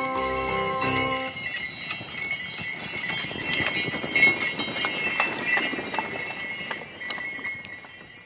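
Sleigh bells on a two-horse sleigh jingling steadily, with the muffled hoofbeats of the horses on packed snow, fading near the end as the sleigh moves away. A short tune of steady notes stops about a second in.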